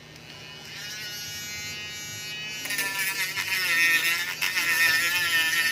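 Small high-speed electric power tool used for trimming and sanding carbon fiber, running with a whine that starts about a second in. The whine grows louder near the middle and wavers in pitch as the tool works.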